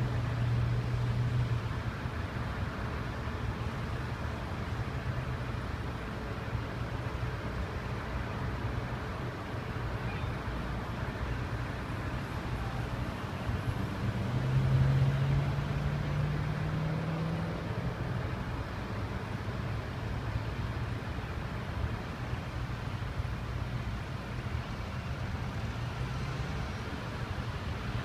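Steady road traffic at a busy multi-lane intersection: a constant hum of car and truck engines and tyres. About halfway through, one vehicle's engine rises in pitch as it pulls through, and this is the loudest moment.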